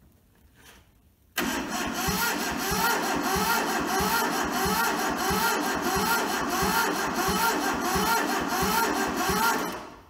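Starter motor cranking the diesel engine of a Toyota SDK4 skid steer, starting abruptly about a second and a half in and turning over with a steady pulsing beat for about eight seconds without the engine catching, then stopping just before the end. The injectors are loosened, so it is being cranked to bleed air from the fuel system.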